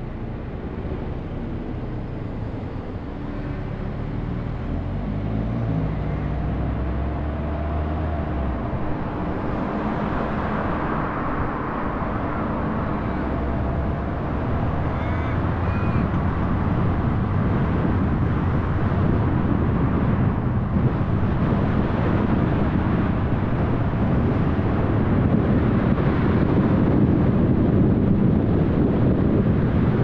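Car pulling away and accelerating: the engine note climbs in steps over the first several seconds. Steady tyre and wind noise then grows gradually louder as the speed builds.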